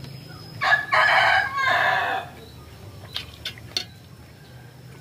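A rooster crowing once, a call of about a second and a half starting about half a second in, followed by a few light clinks of a metal spoon against a steel serving tray.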